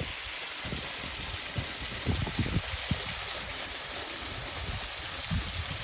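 Small waterfall running steadily, a constant rush of falling water, with a few low thumps on the microphone.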